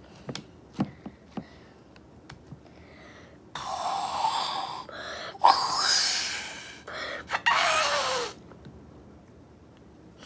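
Air blown through a drinking straw into slime in three long puffs, starting about three and a half seconds in, as a slime bubble swells on the straw. The last puff carries a squeaky whistle that falls in pitch. Before the puffs come a few small sticky clicks of the slime being handled.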